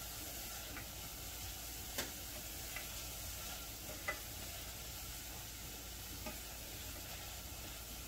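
Onions sizzling in a frying pan as they are stirred, cooked to almost translucent, with a few light taps and scrapes of the stirring utensil against the pan.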